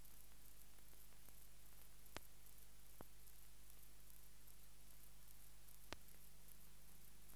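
No recorded sound, only the noise floor of a silent film transfer: a faint steady hum and hiss, with three faint clicks, about two seconds in, three seconds in and near six seconds.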